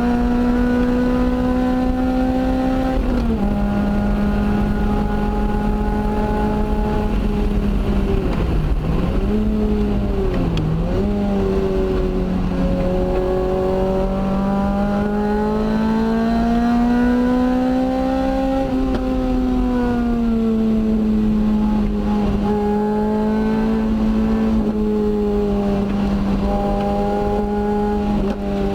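Lotus Elise's four-cylinder engine at high revs on a lap: it shifts up about three seconds in, drops sharply twice with quick blips between about eight and eleven seconds, climbs slowly for several seconds, then eases off, with further steps in pitch near the end.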